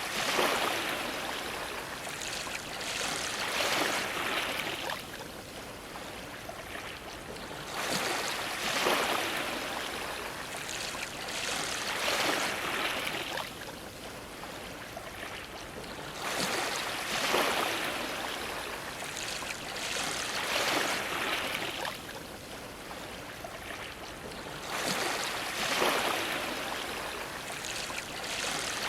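Ocean waves washing against a dock, each wave surging and splashing every few seconds over a steady wash of water.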